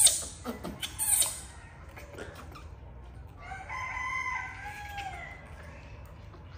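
A rooster crowing once, a single held call of about two seconds that starts about three and a half seconds in and drops in pitch at its end. A few loud, short hissing noises come before it in the first second and a half.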